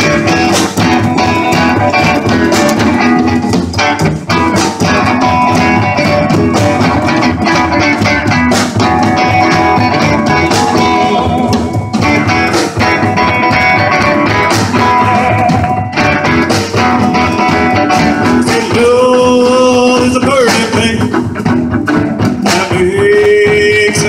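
Live band playing, guitar to the fore over a steady beat.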